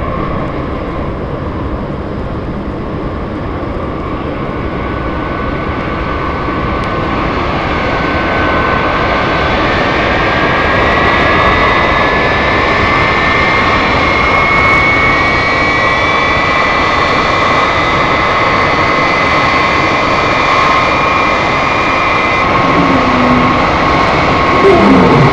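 Several sound-effects record tracks playing over each other as loops. The main layer is a steady engine roar with high whines that rise slowly in pitch, growing louder over the first half.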